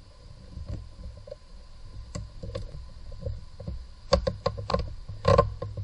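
Heater hose connectors of plastic and metal being handled and worked loose by hand: scattered light clicks and knocks, with a quick run of sharp clicks about four seconds in and a louder clack shortly after.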